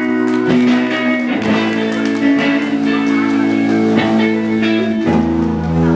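Guitar-led rock music with held, sustained chords that change every second or two; a deeper bass comes in about five seconds in.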